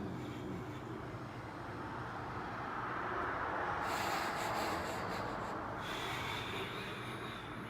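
Soft rubbing and shuffling of bare feet pressing and sliding on a person's back during a walking-on-the-back massage, a hiss that swells about three seconds in and eases off near six seconds.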